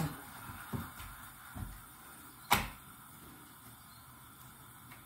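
Hands working in a steel mixing bowl of batter: a few soft knocks, then one sharp clack about two and a half seconds in, against a quiet kitchen.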